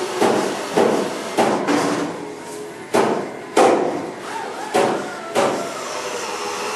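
Wooden lead-shaping paddle repeatedly knocking against torch-softened body lead on a steel panel, a little under two sharp knocks a second, stopping about a second before the end. The torch flame keeps the lead soft with a steady hiss under the knocks.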